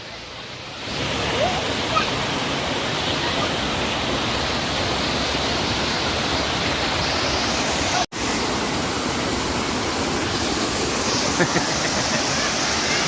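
Waterfall rushing, a steady wash of falling water. It is quieter for the first second, then full. There is a brief break in the sound about eight seconds in.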